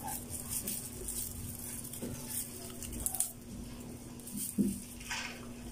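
Soft rustling and light snapping as moringa (malunggay) leaves are stripped by hand from their stalks. A few louder handling sounds come about two, three and four and a half seconds in.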